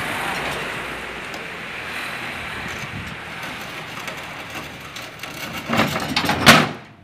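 Dump truck tipping a load of fill soil: the earth slides and pours off the raised bed in a steady rushing hiss. Near the end comes a burst of loud knocks and thuds as clods and the hanging steel tailgate clatter.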